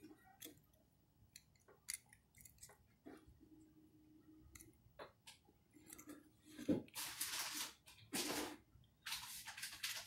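Small clicks, scrapes and rustles of a compressor pressure switch being pried apart by hand, its plastic housing working loose from the metal base. The handling gets louder in the second half, with several rustling bursts.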